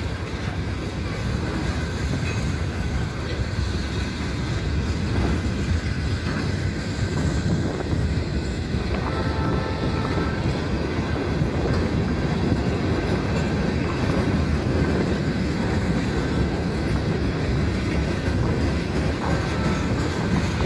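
Freight train of loaded tank cars and hopper cars rolling past, a steady noise of steel wheels running over the rails.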